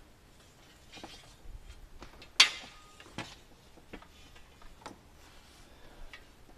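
Hand work freeing a long metal roof trim strip: scattered light clicks and knocks about a second apart, with one sharp clack about two and a half seconds in.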